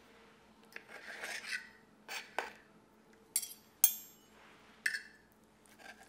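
Knife and fork scraping across a plate while cutting through a fried egg with crispy edges: two rasping scrapes, then three sharp clinks of metal on the plate, the loudest about four seconds in.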